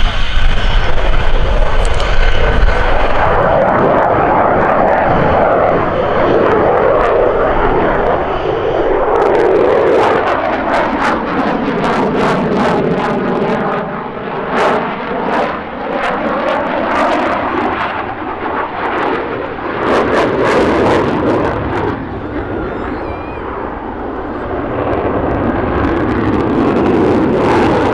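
F-16 Fighting Falcon single-engine fighter jet flying a display: continuous jet noise with a deep rumble at first. It fades slightly with a sweeping, phasing whoosh through the middle as the jet passes, then builds again near the end.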